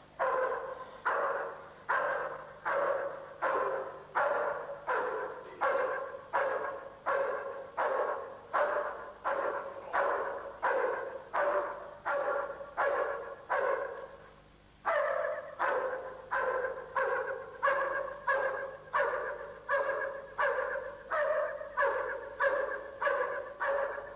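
A dog barking steadily and repetitively, nearly two barks a second, with one short pause about two-thirds of the way through. This is a dog barking in protection training.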